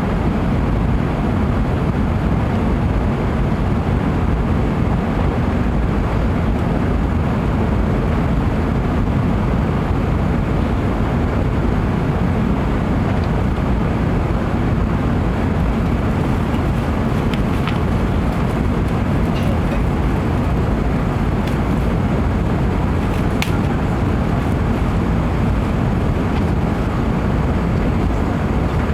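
Airbus A380 cabin noise: a steady low rumble of engines and airflow heard from inside the cabin, with a few faint ticks in the second half.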